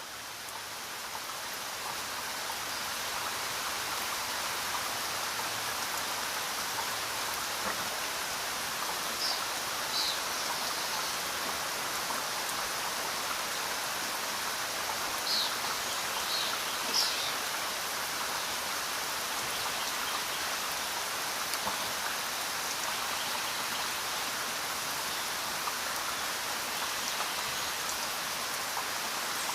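Steady rain, a dense, even hiss, fading in over the first few seconds. A few short, high chirps sound in the middle.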